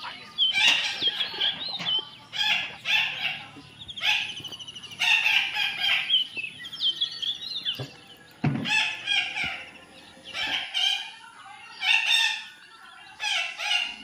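Parakeets giving repeated high-pitched screeching calls in short bursts, about one a second, with a brief low thump about eight and a half seconds in.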